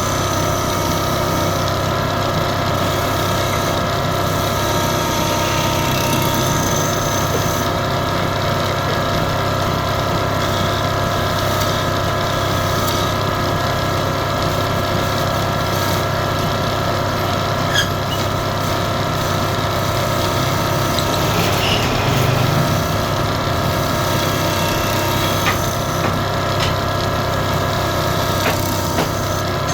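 Wood lathe running steadily, its motor giving a constant hum, with a few short clicks along the way.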